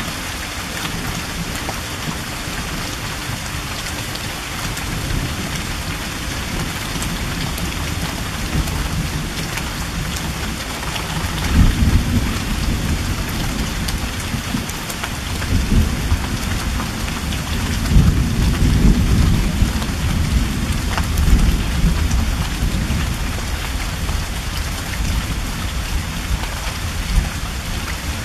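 Light rain falling steadily, with rumbling thunder rolling in about a third of the way in, coming in several swells and loudest through the middle before easing.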